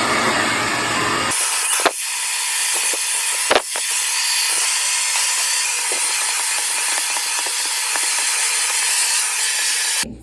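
Hand-held hair dryer running steadily on wet hair, with two brief knocks about two and three and a half seconds in; it cuts off suddenly near the end.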